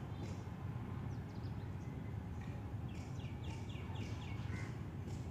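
Birds chirping in the surrounding trees, with a quick run of about six short repeated chirps about three seconds in, over a steady low rumble.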